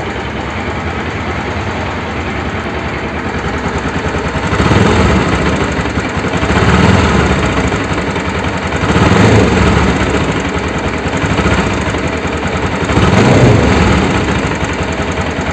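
Bajaj Pulsar NS200 single-cylinder engine idling, with about five short throttle blips in the second half. It carries a 'tick tick tick' that the mechanic calls tappet noise, which did not clear after a tappet adjustment. On teardown the cause proved to be a damaged camshaft and worn rocker-arm bearings.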